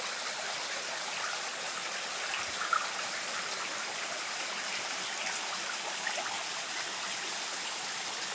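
Mountain stream running: a steady trickling rush of water, with one short tap a little under three seconds in.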